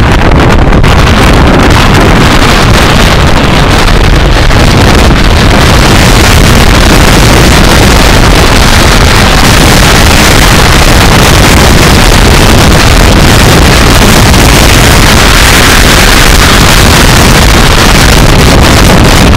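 Typhoon-force wind buffeting the phone's microphone: a loud, unbroken rush of noise with a low rumble beneath, turning hissier from about six seconds in.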